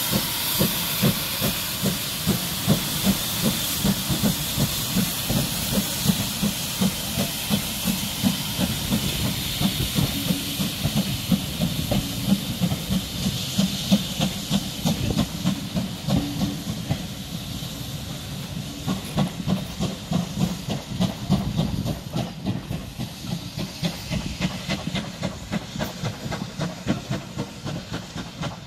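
GWR Small Prairie 2-6-2 tank locomotive No. 5541 pulling away with its train: a loud steam hiss that fades about halfway through, with the coaches' wheels clicking quickly over the rail joints as the train rolls past and away.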